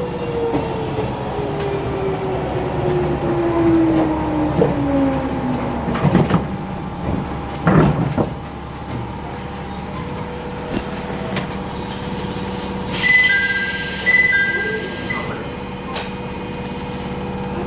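Inside a Jomo Electric Railway 700-series car (ex-Keio Inokashira Line stock), the traction motor whine falls steadily in pitch as the train brakes into a station. A couple of knocks come as it comes to a stop. A steady hum follows, with a two-note electronic chime sounding several times near the end.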